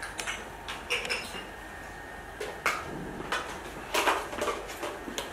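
Irregular light clicks and knocks of ventilator hardware being handled as the hanger arm is set to an angle, a scattering of short taps a second or so apart.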